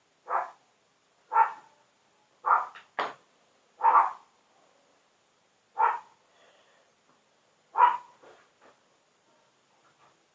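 A dog barking: about seven short, single barks at uneven intervals, the last one about eight seconds in.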